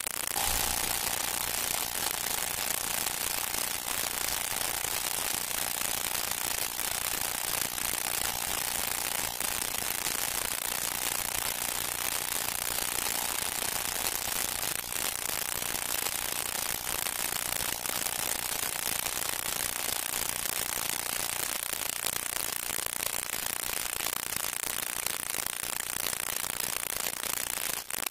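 Steady, loud hiss with faint scattered crackles and a faint thin hum that fades out about two-thirds of the way through, the surface noise of an old film soundtrack with no music or voices on it.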